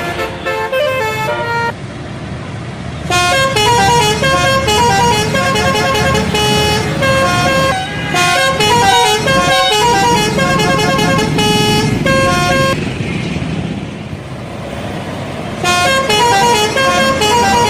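Indonesian bus telolet horn: a multi-tone air horn playing quick stepped melodies. A short run comes at the start, a long one from about three seconds to near thirteen, and another near the end, all over a low rumble.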